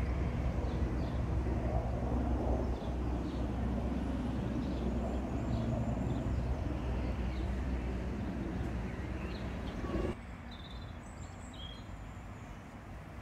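Outdoor ambience: a steady low rumble with small high chirps over it. About ten seconds in, the rumble drops away suddenly, leaving the chirps clearer.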